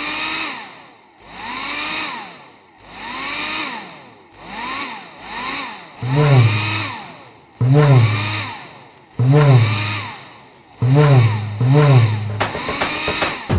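Hair dryer switched on and off over and over in a rhythm, its motor whine rising in pitch and falling away with each burst. From about six seconds in, a deep bass thump lands under each burst, and sharp drum hits start near the end.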